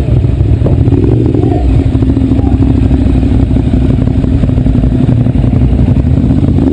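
Motorcycle engine running at a steady pitch as the bike rides along, heard from the rider's own machine.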